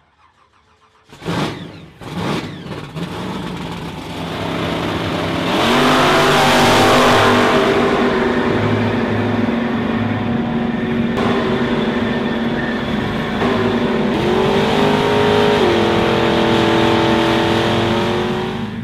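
Lawn mower engine: two short bursts about a second in, then the engine running, louder from about five seconds in, with its pitch stepping up twice near the end.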